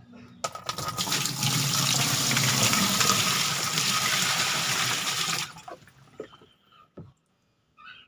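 Water poured from a plastic bucket, splashing into the plastic wash tub of a twin-tub washing machine. It starts about half a second in and stops about five and a half seconds in, filling the tub to test for a leak at the drain valve.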